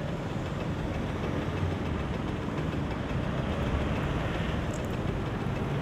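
Motor scooter engine idling steadily, with city street traffic around it.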